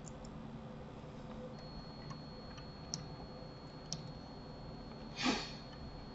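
A few faint computer mouse clicks, with a short louder puff of noise about five seconds in.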